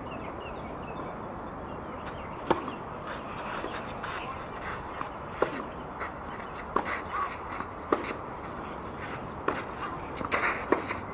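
Tennis ball struck back and forth by racquets in a rally, sharp pops of the hits and bounces about every one to one and a half seconds, over a steady outdoor hiss.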